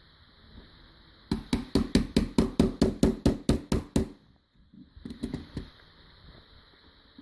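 A rapid run of about a dozen sharp knocks, like hammer taps on a hard object, at roughly four to five a second, then a few lighter clicks about two seconds later.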